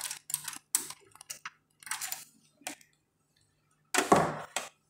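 Short clicks and rattles of a VGA cable's metal connector being handled and plugged into the NVR's rear port, with a louder clatter about four seconds in.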